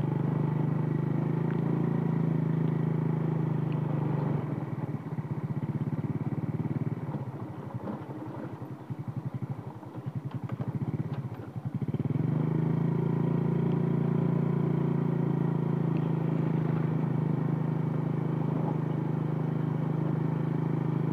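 Motorcycle engine running steadily while riding, heard from the bike. About four seconds in its sound drops away and stays low for several seconds. About twelve seconds in it comes back up to a steady pull.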